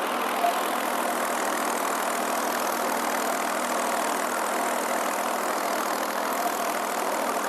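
Ford 4500 backhoe's engine running steadily at a constant speed.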